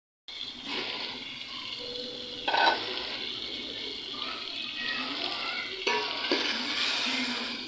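Oily onion-tomato-yogurt masala gravy sizzling steadily as it fries in an aluminium pot, with a brief louder sound about two and a half seconds in.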